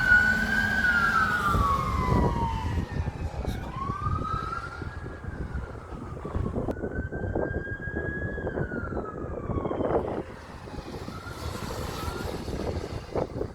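Fire apparatus sirens wailing in long, slow rising and falling sweeps over the low rumble of the trucks' engines and road noise, growing fainter over the first several seconds.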